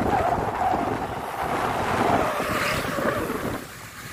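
Wind buffeting the microphone of a camera carried along at riding speed: a steady rushing rumble that eases off near the end.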